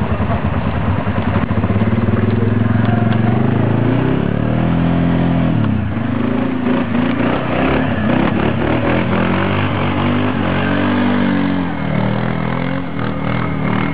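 ATV engine revving hard under load, its pitch rising and falling again and again as the quad is driven up and out of a muddy rut on a slope.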